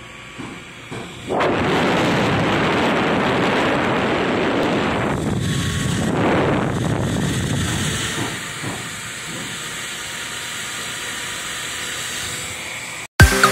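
Small blower-type CPU fan from an HP slim PC starting up about a second in and running flat out, a loud even rush of air. The rush eases to a lower steady level about two-thirds of the way through, and the sound cuts off abruptly near the end.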